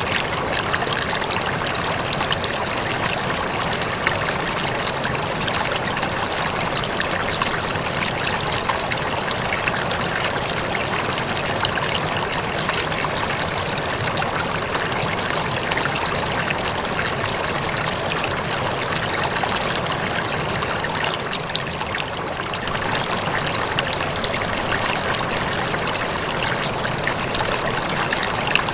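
Steady trickling and splashing of water circulating in an aquarium, easing slightly for a moment about two-thirds of the way through.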